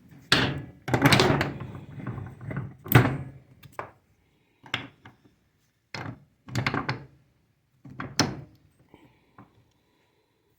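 Knocks and clanks of a piece of scrap metal being set in a bench vise and clamped: a run of clatter in the first few seconds with one sharp strike, then single thunks a second or two apart.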